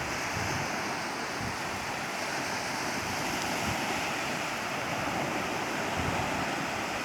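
Sea surf: a steady wash of breaking waves.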